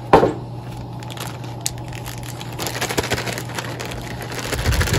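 Plastic zip-top bag of seasoned flour crinkling and rustling as it is handled and sealed, with a short, loud clack just after the start, over a steady low hum.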